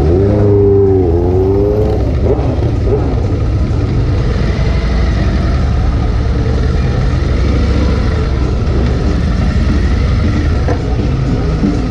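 Bagger motorcycle engine running at low speed with a steady low rumble; in the first two seconds its pitch dips and climbs again as the throttle is eased off and rolled back on.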